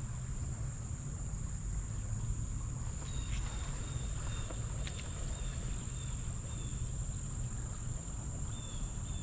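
Insects trilling steadily in one high-pitched tone, over a low rumble. From about three seconds in, faint short chirps repeat roughly twice a second.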